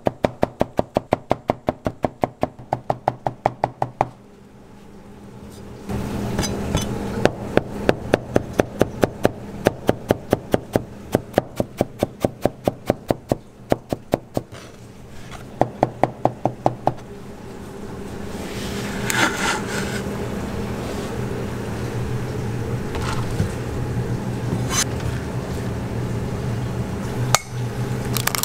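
Steel cleaver chopping carrots on a plastic cutting board in fast, even runs of about five or six chops a second, with short pauses between the runs. From about two-thirds of the way in the chopping stops, and a steady kitchen hum with a few scattered clicks is left.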